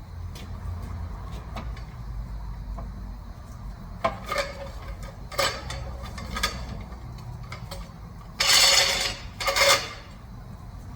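Metal clinking and clattering over a steady low hum: a few separate clinks, then two louder, longer clatters near the end.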